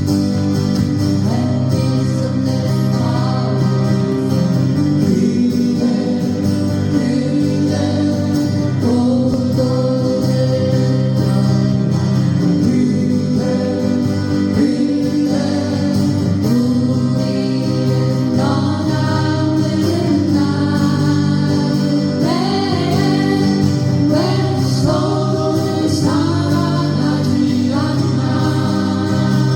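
Live acoustic song: a sung vocal melody over acoustic guitar accompaniment.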